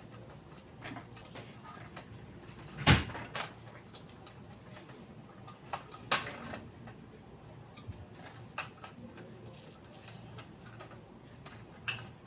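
Scattered clicks and knocks of hard parts being handled during printer repair work, loudest about three seconds in and again about six seconds in, over a low steady hum.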